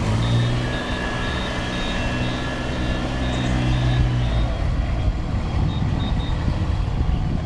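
Small engine of a walk-behind rice transplanter running steadily while it plants seedlings, its hum giving way to a rougher rumble about halfway through. A faint high pulsing beep sounds through most of it.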